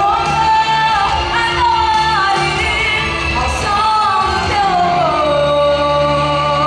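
Choir singing a Portuguese-language gospel worship song with instrumental accompaniment. The melody falls onto one long held note about five seconds in.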